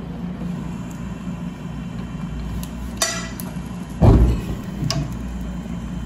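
Gas stove burner being lit with an electric arc lighter: a short high buzzing click about three seconds in, then a low thump about a second later as the gas catches.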